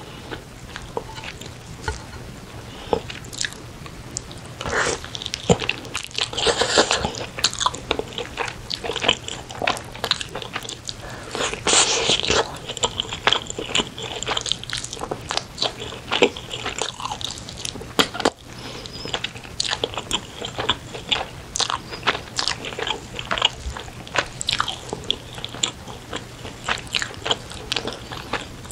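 Close-miked eating: a person biting and chewing saucy chicken from a spicy stew, with many short wet smacks, clicks and crunches from the mouth.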